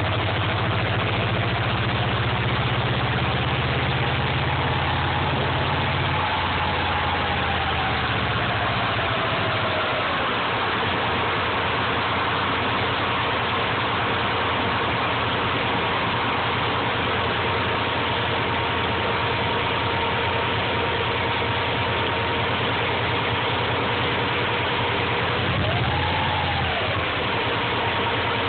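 Subaru EJ22 flat-four engine idling under a steady, even rush of noise. The low hum shifts slightly about six seconds in and again near the end, and a faint whine rises and falls twice.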